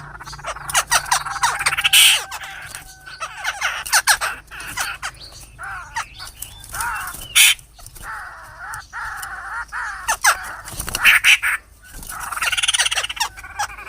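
Black-throated laughingthrushes fighting: a dense, unbroken run of harsh calls and sharp clicks, with wavering notes.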